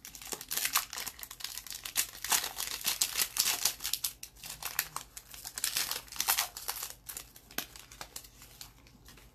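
Hockey card pack's wrapper torn open and crinkled by hand: a dense run of crackling that stops near the end.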